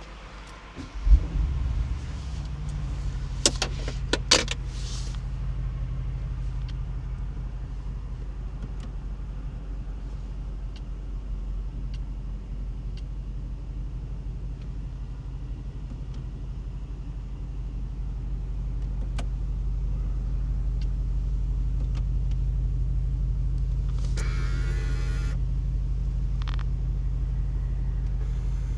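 Mercedes-AMG SL55's 4.0-litre twin-turbo V8 starting with a sudden loud flare about a second in, then settling into a steady low idle. A couple of sharp clicks come a few seconds after the start, and there is a brief whirring noise near the end.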